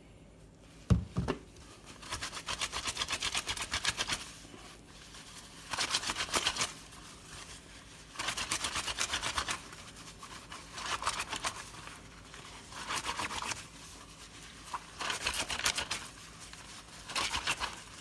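Wet, soapy polyester jacket fabric scrubbed by hand, rubbed hard against itself in bursts of quick strokes with short pauses between, to work dark stains out with hot water and dish soap. A single knock about a second in.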